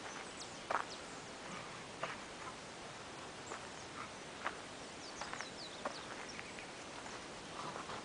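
Outdoor background: a steady hiss with scattered short clicks and a few quick, high chirps.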